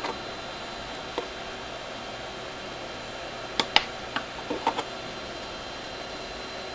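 Small sharp plastic clicks and taps as a green terminal header is pushed onto a circuit board's pins and the board is handled, with the loudest cluster of clicks a little past halfway, over a steady background hiss.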